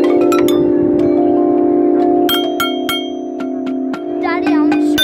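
Outdoor playground xylophone with metal tube bars, struck again and again with ball-headed mallets; each strike sets a bell-like note ringing on, so several notes overlap and sustain.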